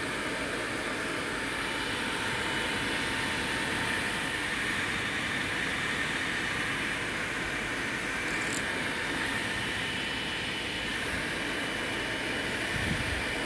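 Small electric cooling fan of a homemade Peltier mini air conditioner running steadily, an even whoosh of air with a faint whine. A brief tick comes a little past the middle and a low thump near the end.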